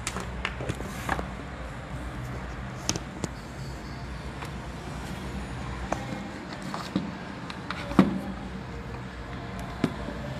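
Scattered small clicks and knocks of a device being handled, the loudest about eight seconds in, over a steady low hum.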